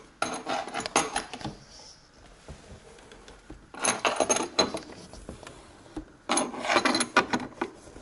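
Metal hand tool clicking and clattering against the steel base and height-adjustable feet of a Bosch built-in dishwasher as the feet are screwed up to raise the machine. There are three bursts of quick clicks with short pauses between them.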